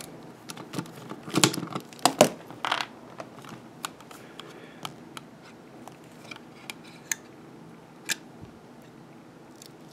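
Hard black plastic drive enclosure and a screwdriver being handled: a string of clicks and taps, loudest about one to three seconds in, then sparser single ticks.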